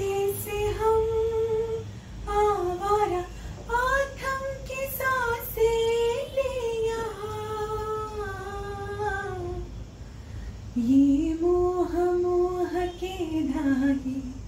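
A woman singing solo, one voice with no instrument heard, holding long notes with sliding, ornamented bends between them. There is a short break about ten seconds in before a lower phrase.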